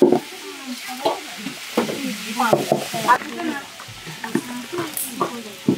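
Stirring and scraping in a large aluminium cooking pot of steaming taro, with a sizzling hiss from the cooking. Voices talk in the background.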